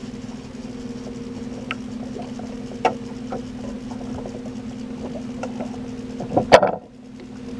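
Boat motor running steadily at trolling speed, with scattered light clicks and knocks of gear in the boat. About six and a half seconds in comes a loud clatter as a rod is handled out of its holder.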